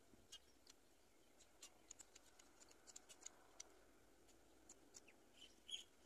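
Near silence, with faint scattered high-pitched ticks and a short chirp-like sound near the end.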